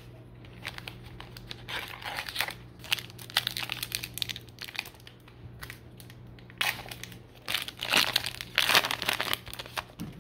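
Wrapper of a 2022 Topps Archives baseball card pack crinkling and tearing as the pack is opened by hand, in two spells of rustling, the second starting about six and a half seconds in.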